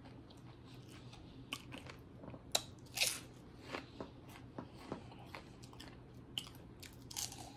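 Close-up crunching and chewing of fried pork skins, a run of irregular sharp crunches, the loudest about three seconds in.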